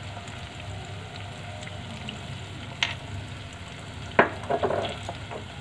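Chopped onions and capsicum sizzling steadily in hot oil in a kadai as tomato ketchup is spooned in. Two sharp clicks stand out, a little before the three-second mark and again about four seconds in, followed briefly by some light clatter.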